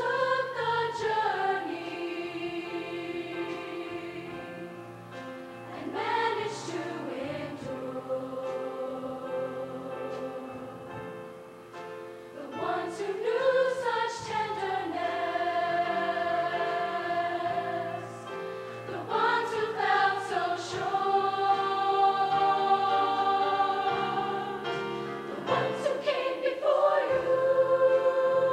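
High school show choir singing a slow passage of long held chords, each phrase opening with a swell, a new phrase about every six seconds.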